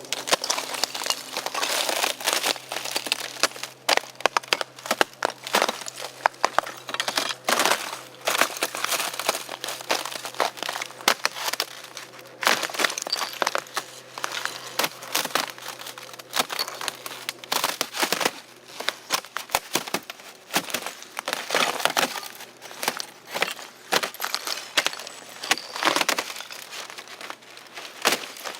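Irregular crinkling and crackling, a dense run of small sharp clicks and rustles, as of crinkly material such as plastic or packaging being handled.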